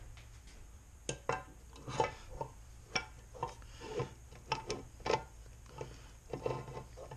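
Metal clinks and knocks, about a dozen at an irregular pace with rubbing between them, as a transfer case's six-gear planetary assembly is worked by hand into its seat in the metal case.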